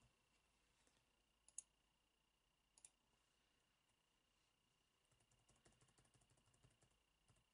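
Near silence broken by faint clicks of a computer keyboard and mouse: two single clicks about a second and a half and three seconds in, then a quick run of very faint clicks near the end.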